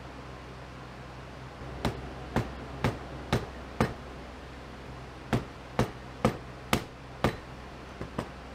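Sharp metallic taps on a bent steel worm shaft, in two runs of five at about two a second, with two lighter taps near the end: the shaft is being tapped to straighten it.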